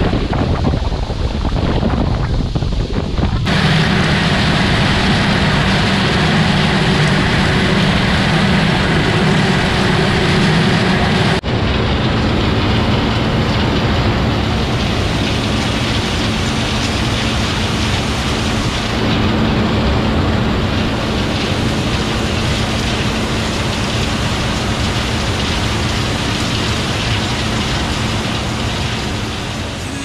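Harvest machinery running steadily: an engine drone under a rushing noise, with wind buffeting the microphone. The sound changes abruptly about 3 s in and again about 11 s in.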